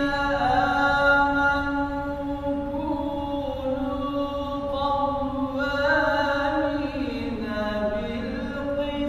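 A man chanting a Quran recitation in Arabic in long held notes that slide and ornament between pitches, the melody falling lower near the end of the phrase.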